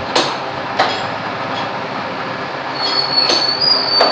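M1TR milling machine running steadily, with several sharp metallic clicks. A thin high-pitched metal squeal sounds in the last second or so.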